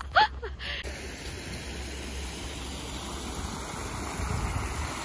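Small waterfall cascading down a rocky stream bed: a steady rush of falling water, starting about a second in after a brief voice.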